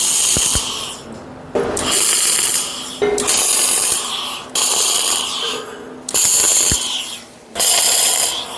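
Electric arc welder striking in about six bursts of a second or so each, with short pauses between: tack welds joining the steel plates of a log-splitter frame.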